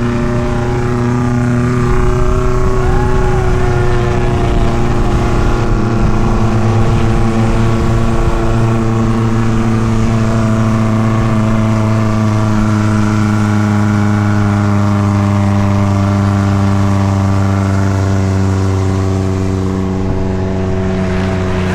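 Suzuki Jimny's engine running at steady, fairly high revs while driving.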